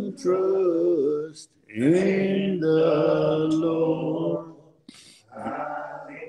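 A man singing slowly and unaccompanied, drawing out long held notes in three phrases with short breaths between them.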